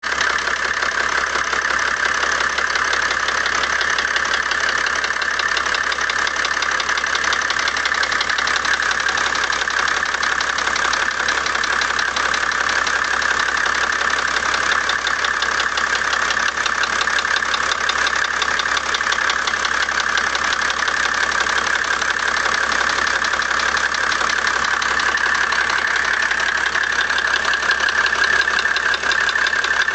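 Mercedes-Benz W124 E300 Turbodiesel's inline-six diesel engine idling steadily with a rapid ticking. The ticking comes on once the engine is hot and persists even after all 12 lifters were replaced and the injectors fixed; the owner cannot say what is causing it.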